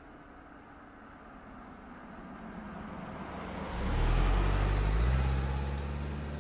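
A car driving past: tyre and engine noise builds up as it approaches, is loudest about four seconds in with a deep engine hum, then fades as it moves away.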